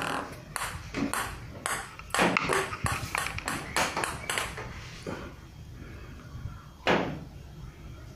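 Table tennis ball bounced repeatedly on the bare wooden face of a Yinhe Bake U-1 VB blade: a quick run of sharp pings, about three a second for some four seconds, then one last bounce near the end.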